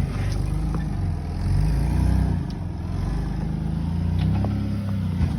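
Off-road 4x4's engine running at low speed while crawling over rock, its pitch rising and falling as the throttle is eased on and off. A few sharp ticks sound over it.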